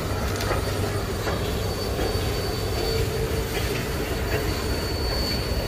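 Passenger train cars rolling past on a tight curve, their wheel flanges squealing against the rail in a steady high whine over the low rumble of the wheels, with a few scattered clicks from the rail joints.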